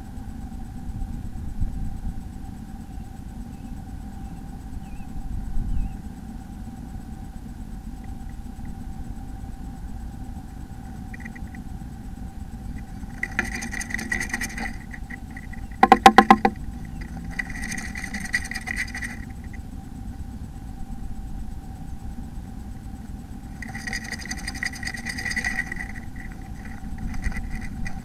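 A blue tit shifting about inside a wooden nest box, heard over a steady low hum and rumble. There are three bursts of scratchy rustling, and a brief clatter of sharp knocks against the box about 16 seconds in.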